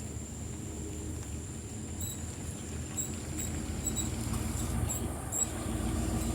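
Night insects trilling steadily at a high pitch, with short sharp chirps in the middle, over a low rumble that grows louder toward the end.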